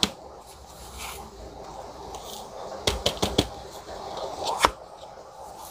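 Hands pressing and patting loose, chunky potting mix around a plant's stems in a plastic pot: soft rustling of the mix, with a quick run of about four sharp taps around three seconds in and one louder knock near the end.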